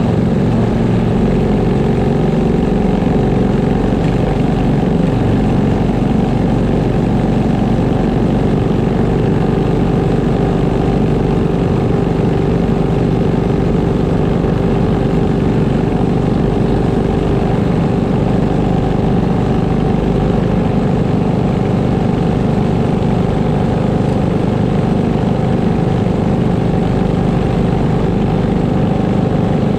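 Racing go-kart engines idling steadily while the karts stand still, with no revving.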